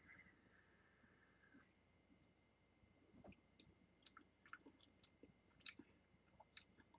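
Near silence, broken by a dozen faint, scattered mouth clicks and lip smacks while vaping an e-cigarette, with a faint high whine during the first second and a half.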